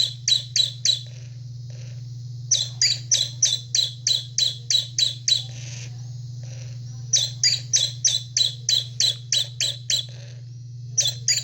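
First-generation Gemmy animatronic singing bluebird toy in its chirping mode: its speaker plays the same high bird chirp over and over, about four a second, in runs of a few seconds broken by short pauses. A steady low hum runs underneath.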